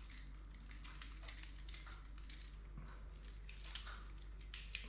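Faint handling sounds from gloved hands winding bait elastic around a bundle of bait: scattered soft ticks and rustles, a few a little sharper near the end, over a steady low hum.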